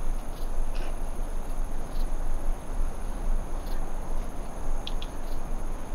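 Steady outdoor ambience: a low rumble under a constant high, insect-like drone, with a few faint ticks scattered through it.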